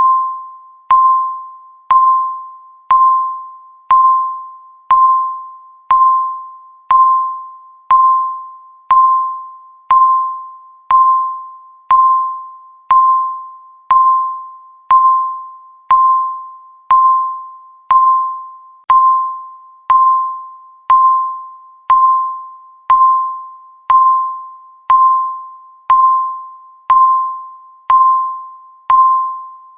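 Countdown timer's electronic beep, a single mid-pitched ding once every second, each one sharp at the start and fading away before the next: the steady per-second tick of the countdown.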